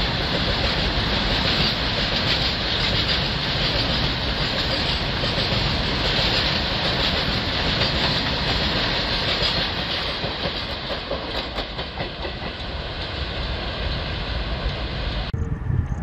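A long rake of covered freight wagons rolling past on the adjacent track: a steady clatter and rumble of wheels on rail. It eases off after about ten seconds and cuts off suddenly near the end.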